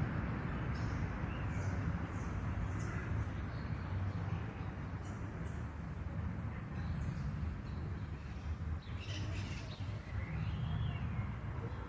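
Small birds chirping, short high calls scattered throughout, over a steady low rumble.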